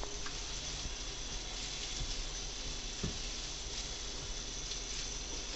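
Bathtub tap running steadily, with one light knock about three seconds in.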